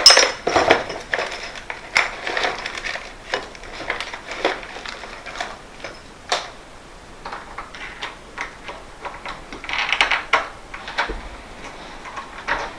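Irregular metallic clicks, ticks and small rattles of lever-handle hardware and screws being handled and driven in while door handles are fitted to a mortice lock. There is a cluster of clicks about ten seconds in.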